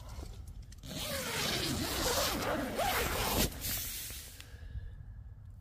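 A tent door zipper being pulled open, starting about a second in and running for about two and a half seconds.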